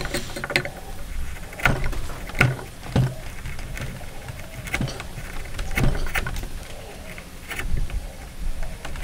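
Steel chisel pared by hand through wood in a housing joint: irregular scraping cuts with about half a dozen sharp cracks as fibres shear and chips break away.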